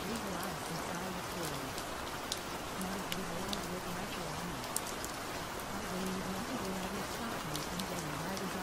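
Steady rain with a dense patter of individual drops. A low voice with a wavering pitch runs faintly underneath, too buried to make out.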